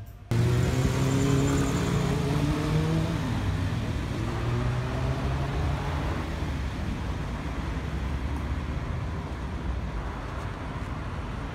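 City street traffic: a motor vehicle's engine running close by, rising in pitch over the first couple of seconds and falling away near three seconds, over a steady rush of traffic noise.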